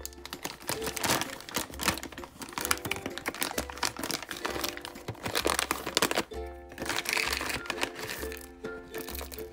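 Hand-cranked coffee mill crunching coffee beans in a rapid run of crackling strokes, over background music.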